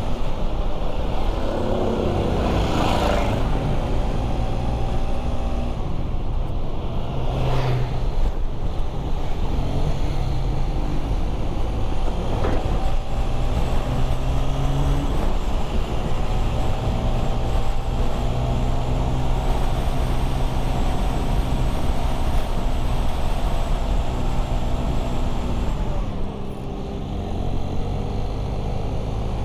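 Motor-vehicle engines and road traffic noise, running steadily, with louder passing surges about three and seven seconds in and a slight drop in level near the end.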